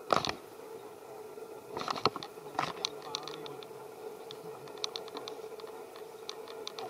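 Light, irregular clicking and ticking, a few clicks a second from about two seconds in, after a short louder rustle-like noise at the very start, over a steady faint hum.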